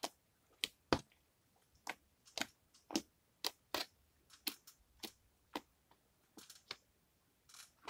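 Fluffy borax slime being poked with a finger, giving a string of small, sharp pops and clicks at an uneven two or three a second.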